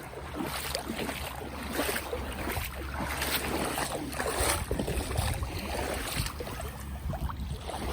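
Shallow sea water sloshing and splashing, with wind buffeting the microphone.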